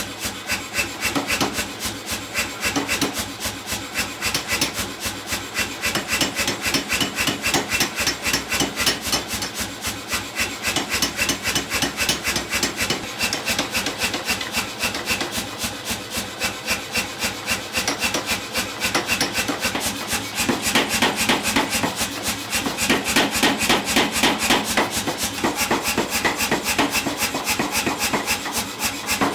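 Rapid, steady hammer blows on hot iron at the anvil, drawing out a forged rose's stem.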